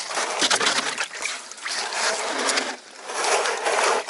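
Water sloshing and splashing in a plastic barrel, in two rushing bursts.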